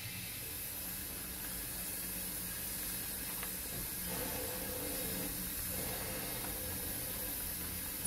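Steady hiss with a faint low rumble as a 7mm scale (0 gauge) model goods train of open wagons is drawn along the track.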